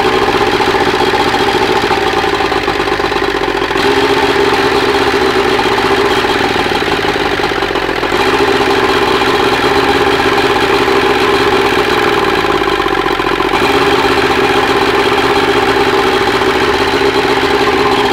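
Three-cylinder outboard motor running steadily at idle during a balance check. Its note dips slightly three times, in a similar way each time. It is running evenly on all three cylinders now that its carburettor problem, which had left only the number 2 cylinder firing properly, is fixed.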